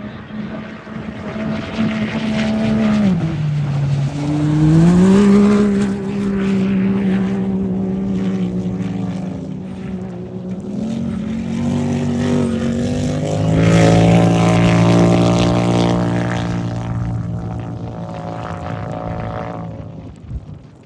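Off-road race vehicle engines running hard. The pitch drops about three seconds in and climbs again a second later, then a louder, deeper engine note builds in the middle and fades near the end.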